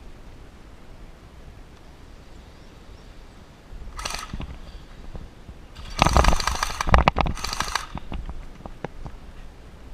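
Airsoft electric rifles firing full-auto: a short burst about four seconds in, then a louder, longer burst of rapid shots about six seconds in, broken once briefly, with the whine of the gun's gearbox motor under the clicks.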